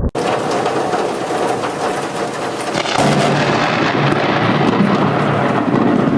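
Thunder from a close lightning strike, a continuous loud rumble with crackling that grows louder about three seconds in.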